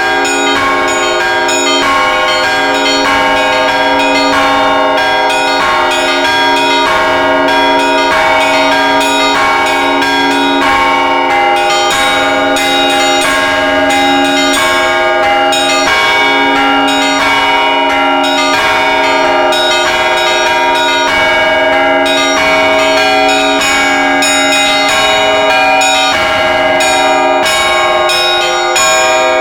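Russian Orthodox church bells ringing a zvon: many bells struck in a quick, unbroken pattern, their tones ringing on over one another.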